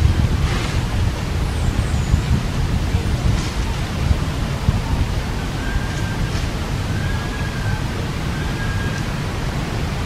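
Steady low rumble of wind buffeting the microphone outdoors. In the second half come a few faint, thin whistled notes.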